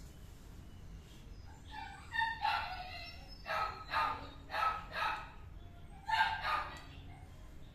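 Kitten meowing: a series of short, high meows, about seven of them, between roughly two and seven seconds in.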